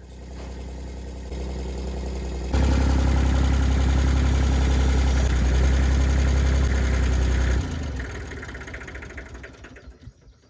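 An engine running steadily. It gets suddenly louder a couple of seconds in, holds for about five seconds, then drops and fades away.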